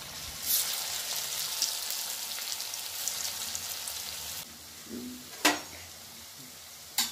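Maggi noodle pakoda balls deep-frying in hot oil in a kadhai: a steady sizzle that swells about half a second in as the balls go in, then drops to a quieter sizzle about four and a half seconds in.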